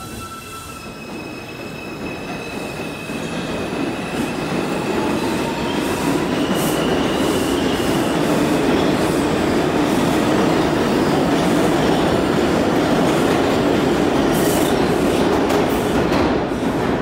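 Bombardier R142 subway train accelerating away from the platform. The motor whine rises in pitch as it picks up speed, under a growing rumble and clatter of wheels on the rails. The noise holds steady, then drops off near the end as the last car clears the station.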